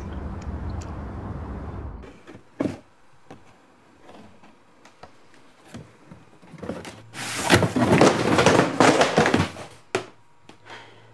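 A low outdoor rumble that cuts off about two seconds in, then scattered knocks and, near the middle, a few seconds of loud scraping and rustling as cardboard boxes are shifted and pulled down from a stack.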